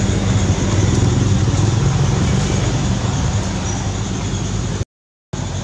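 Steady outdoor background rumble and hiss with a low, even hum underneath. It cuts out completely for about half a second near the end.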